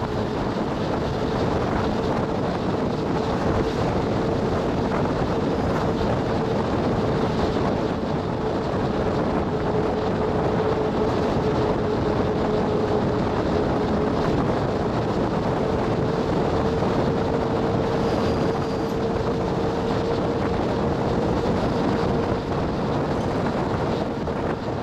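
Bus cabin noise while driving: steady road and engine noise with a hum that drifts slightly in pitch.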